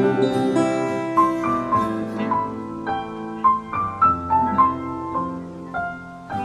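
Piano playing an instrumental passage of a hymn tune without singing: a single-note melody over sustained chords, the notes coming in quicker steps in the second half.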